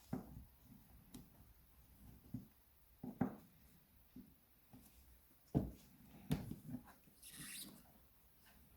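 Close handling of wiring and rubber insulating tape: scattered soft knocks and clicks, with a short rasp near the end as the tape is worked.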